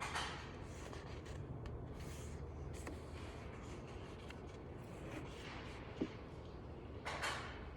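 Library room ambience: a steady low hum with scattered soft rustling and faint clicks. There is one short sharp knock about six seconds in and a louder rustle near the end.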